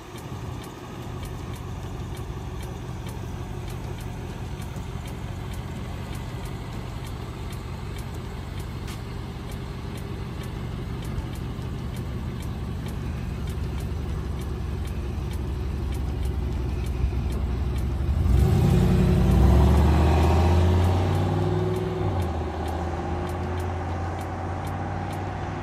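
The 1993 Cadillac Allante's 4.6-litre V8 running steadily and slowly growing louder. About three-quarters of the way through it gets clearly louder, its pitch climbing and then stepping down as the car accelerates, before easing off near the end.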